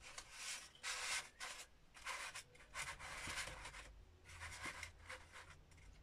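Paper rustling and scraping in short, irregular bursts as hands fold and slide small pieces of paper into the folded pages of a book.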